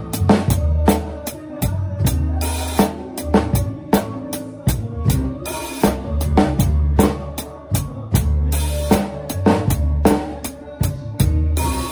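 Drum kit played live in a steady groove: snare and bass drum hits with cymbals over the band's long held bass notes.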